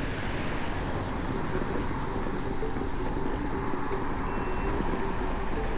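Steady rush of wind on the microphone and the rumble of a Segway electric scooter rolling along pavement.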